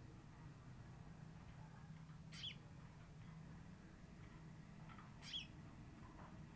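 Female sogon bird calling: two short, high, quick sweeping calls about three seconds apart, the kind of recording played as a lure to draw males. A faint steady low hum runs underneath.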